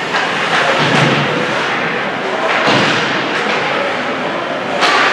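Ice hockey play: sticks, puck and bodies knocking against the boards and each other, with a few sharp knocks, the sharpest near the end, over the rink's steady din.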